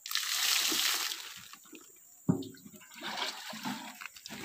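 Water gushing and splashing for about a second and a half as a plastic jerrycan is rinsed out of its slime, then a sharp knock and smaller handling sounds of the jerrycan.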